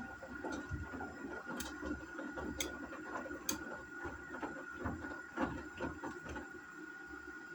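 Gorenje washing machine running a wash, its drum turning with irregular soft knocks and thumps of wet laundry over a steady motor hum; the tumbling settles near the end as the drum pauses.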